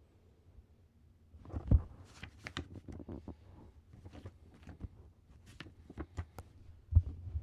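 Handling noises of a CD and its packaging being unboxed: irregular clicks, taps and rustles, with two louder knocks, one about a second and a half in and one near the end.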